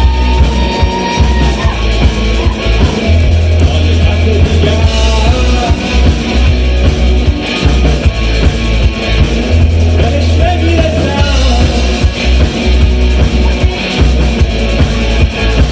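Rock band playing loud, steady music with drum kit, guitar and heavy bass, and a held note near the start.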